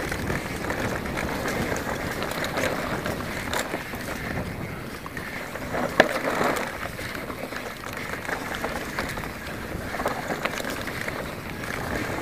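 Specialized Enduro full-suspension mountain bike rattling and clattering as it rides fast over a dirt trail, with wind rush on the microphone. One sharp knock about six seconds in.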